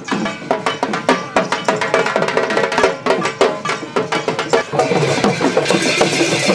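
Procession dance music led by rapid drumming, with dense, quick percussion strikes and some held pitches over them.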